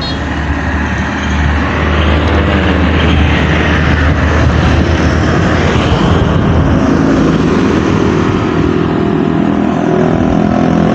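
Road traffic passing close by: engine and tyre noise from passing vehicles, with a steady engine note coming in from about six seconds in.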